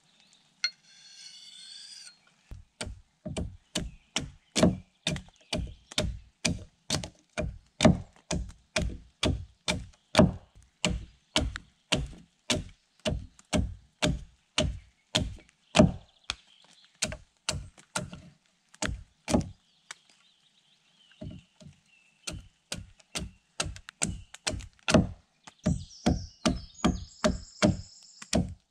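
Hand axe chopping at a wooden stake held upright on a log: quick, even strokes about two a second, with a short pause about two-thirds of the way through. Birds call faintly.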